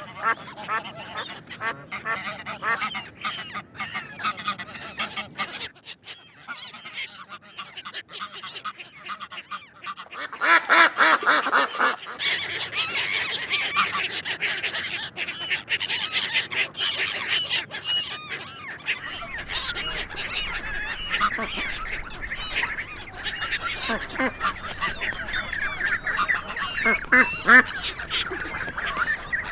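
A flock of domestic ducks quacking. Scattered calls at first, then from about ten seconds in many birds calling at once in a loud, continuous chorus.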